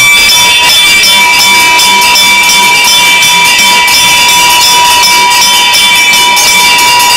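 Temple bells ringing rapidly and without a break, with steady ringing tones under many quick strokes, as during the lamp offering (aarti) to the deities.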